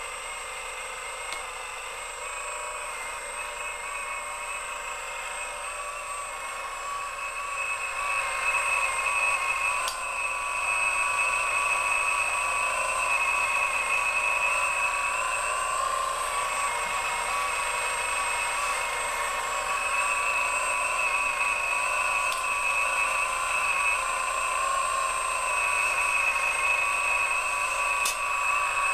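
Radio-controlled model excavator's electric drive whining steadily and high-pitched while the machine swings and digs with its bucket, growing louder about eight seconds in.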